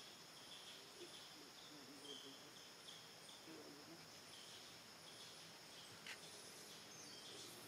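Near silence, with a faint steady drone of insects and soft repeated chirps.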